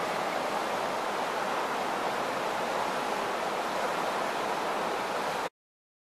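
Steady rush of fast-flowing river water, an even hiss that cuts off suddenly about five and a half seconds in.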